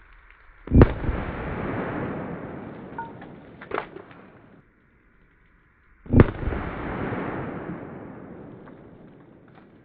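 Two loud gunshots about five seconds apart, each followed by a long rolling echo that dies away over several seconds. A smaller, sharper crack comes between them.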